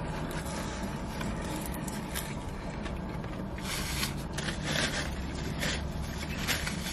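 Fast-food paper packaging and a fry carton rustling and crinkling while handled during eating, in several short crinkles, the loudest about four seconds in, over a steady low hum.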